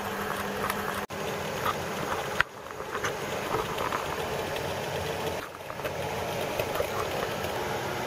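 Regular Coke boiling hard in a glass beaker, a steady bubbling hiss with small pops as its water boils off, broken by a few sudden brief dips.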